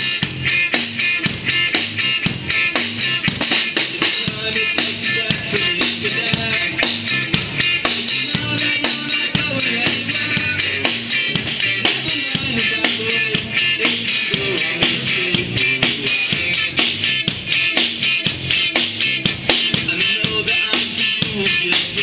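A small band playing live: a drum kit keeping a steady rock beat under an electric guitar and a moving melody line.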